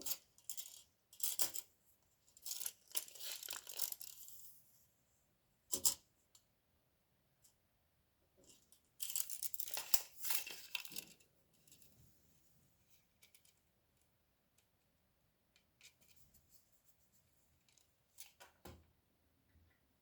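Rustling and handling sounds in several short bursts, the longest about two seconds, with a sharp knock about six seconds in and a few light clicks between.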